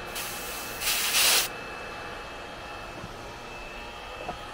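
A short hiss of escaping gas lasting about a second and a half, weaker at first and then louder for its last half-second, over a low steady background.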